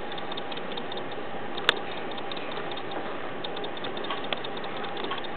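Caique parrot clambering on its wire cage, making small clicks and taps against the bars, with one sharper click about a third of the way in and two fainter ones near the end, over a steady hiss.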